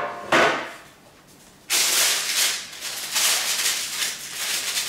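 A brief knock about half a second in, then baking paper rustling and crinkling for about three seconds as a freshly baked cake on its paper is pulled into place on a wire cooling rack.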